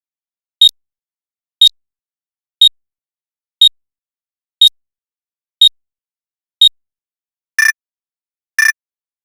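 Electronic beep sound effects, one short beep a second: seven high beeps, then about seven and a half seconds in a different, lower beep with a richer tone takes over and sounds twice.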